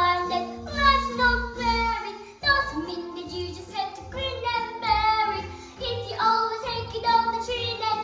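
A child singing a musical-theatre song over a backing track with a steady bass beat.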